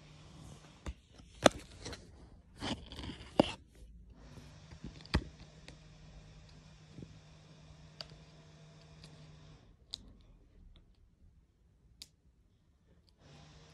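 Handling noise from a phone and a glossy paper sticker album: rustling and several sharp clicks and scrapes in the first few seconds, one more sharp click about five seconds in, then only faint ticks over a low steady hum.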